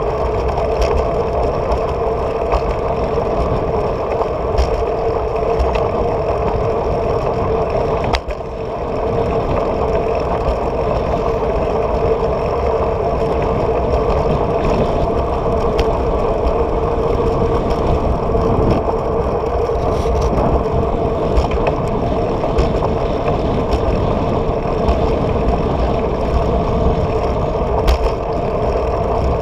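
Riding noise from a bicycle-mounted camera: steady wind and road rumble with a constant hum and small rattles. The rumble briefly drops about eight seconds in.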